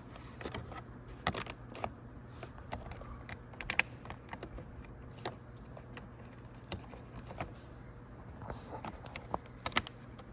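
Irregular light clicks and taps of hand tools and small Torx screws as the screws are started into a door handle assembly, over a faint steady low hum.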